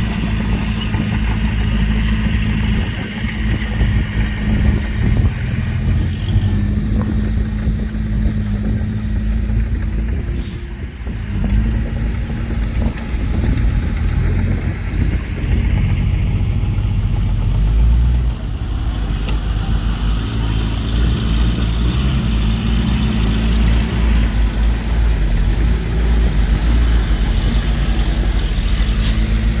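Heavy diesel engines of earthmoving machines, a bulldozer and dump trucks, running under load: a steady low rumble that rises and falls, easing briefly about eleven seconds in.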